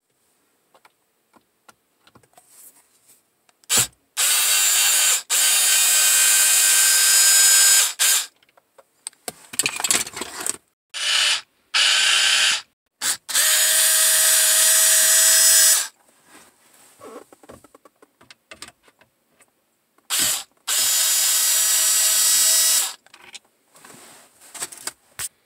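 Cordless power screwdriver running in several bursts of one to four seconds, with short pauses between them, backing out the screws that hold a car's dash trim and heater-control panel.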